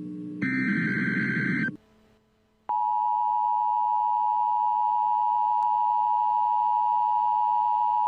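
Emergency Alert System SAME header: a harsh, buzzing data burst lasting about a second and a half, then about a second of silence, then the steady two-tone EAS attention signal starts abruptly and holds.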